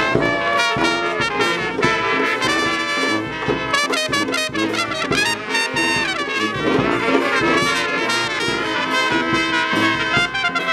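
Brass band playing a lively passage with trumpets in the lead, several horns sounding together, over a steady low beat.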